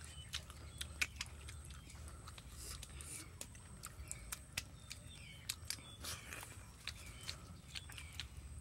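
Close-up eating sounds: chewing, with irregular sharp clicks and smacks from mouths and bamboo spoons as bamboo-cooked omelet is scooped and eaten, over a low steady rumble.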